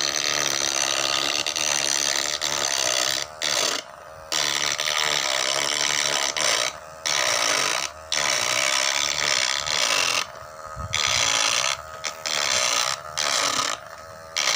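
Small electric motor taken from a broken hair clipper, spinning a rotary burr that grinds into a wooden board as an engraving tool: a high whine with grinding noise, in runs of one to three seconds broken by short pauses.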